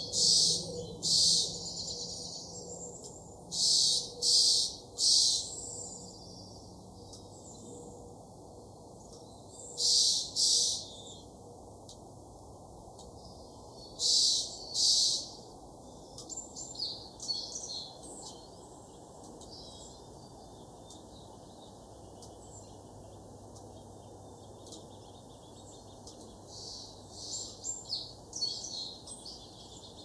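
Small songbird calls: loud, high, buzzy notes in groups of two or three, then softer quick chirps later on, over a steady low background rumble.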